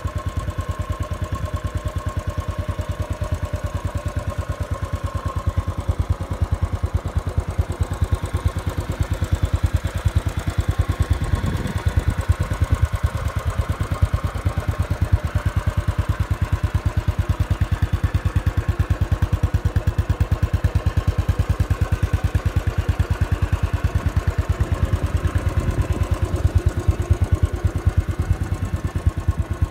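2017 Royal Enfield Bullet 500's fuel-injected single-cylinder engine idling steadily, each firing pulse heard as an even, regular beat.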